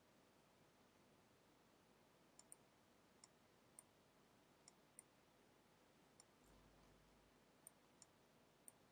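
Near silence with about ten faint, irregular computer mouse clicks, starting a couple of seconds in.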